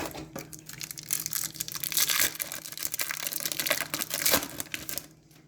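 A trading-card pack wrapper being torn open and crinkled by hand, in a run of crackles that grow louder and stop abruptly near the end.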